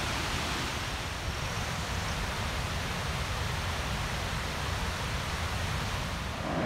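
Rushing mountain stream: a steady hiss of flowing water that gets louder just before the end.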